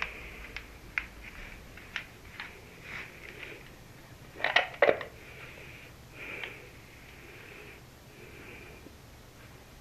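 Handling noises from a homemade motion-sensor firing device: scattered sharp clicks and knocks, with a louder cluster of clacks about four and a half seconds in.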